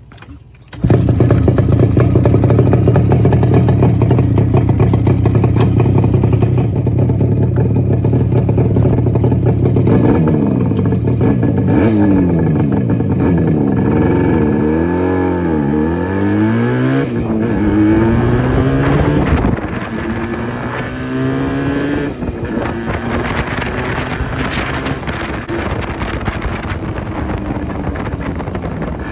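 Yamaha RD250 two-stroke twin running loud through its stock mufflers with the silencer baffles removed. It cuts in abruptly about a second in and holds a steady note, revs up and down repeatedly from about ten seconds in, then settles to a quieter run in the last third.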